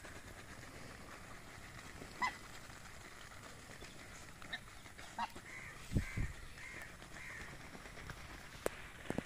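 A flock of white domestic ducks feeding from a tray: scattered sharp clicks and taps, and a run of four short calls evenly spaced a little past halfway, with two low thumps among them.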